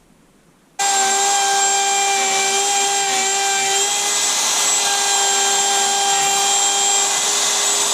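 Electric wood router running at full speed, a steady high-pitched whine that starts abruptly about a second in, while it cuts a quarter-inch-deep groove into a wooden wall stud.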